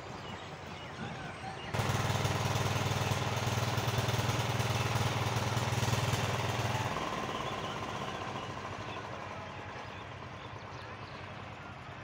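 An engine running loudly close by, starting abruptly about two seconds in, then dropping away around seven seconds and fading out.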